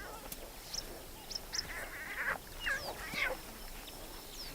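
Young lion cubs squabbling, giving several short, harsh squalls and squeaks in the middle, with thin high chirps scattered among them.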